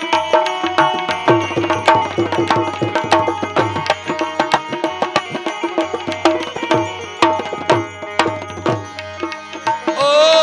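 Instrumental interlude of Indian devotional-folk accompaniment: fast tabla strokes with small manjira cymbals over steady held melody notes. A louder, wavering held note comes in near the end.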